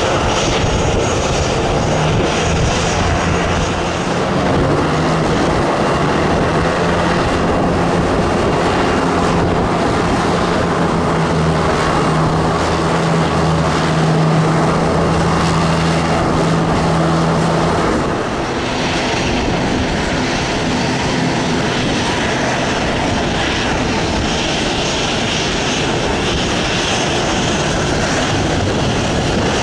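Jet engines of a Boeing 737 airliner running as it moves on the ground, a loud steady rush with a low steady hum that drops away about 18 seconds in.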